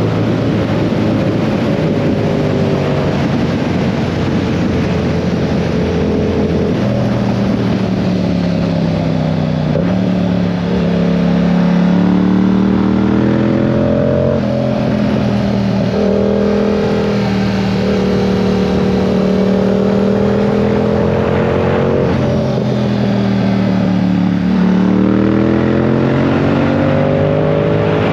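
2022 Yamaha R7's 689 cc parallel-twin engine under riding load. Its pitch rises and falls, with several sudden steps as gears change, over a steady rush of noise.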